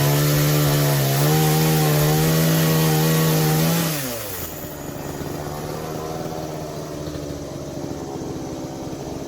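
Blue Max chainsaw running at high revs, then throttled back about four seconds in, its pitch falling as it drops to a lower, quieter run.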